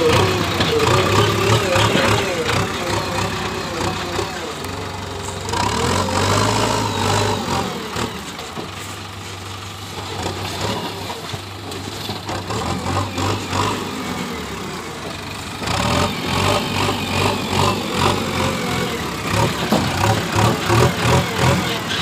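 JCB 3DX backhoe loader's diesel engine running and working the front loader, its note shifting as the machine moves and lifts. The sound changes abruptly about five and a half seconds in and again near sixteen seconds.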